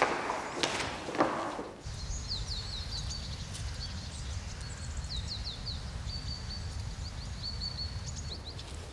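Two hard footsteps, heels on stairs, in the first two seconds. Then outdoor ambience: a steady low rumble with small birds chirping over it, many short, high, quick chirps in irregular runs.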